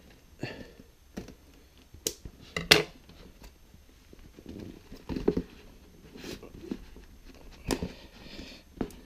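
Scissors cutting the tape on a cardboard shipping box, then hands pulling open and handling the box's cardboard flaps: scrapes and rustles with irregular sharp clicks and knocks, the loudest a little under three seconds in.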